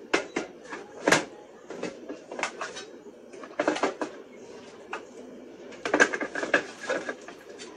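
Small hardware being handled on a tabletop: a sheet-metal chassis holding a timer and a plastic box moved and set down, giving clusters of sharp knocks and clicks, the loudest about a second in and again near the end.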